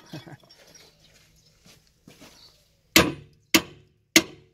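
Three sharp hammer blows on a steel tractor tyre bead breaker tool, about half a second apart and starting about three seconds in, each with a short metallic ring. The blows drive the tool's foot in between the rim and the tyre bead.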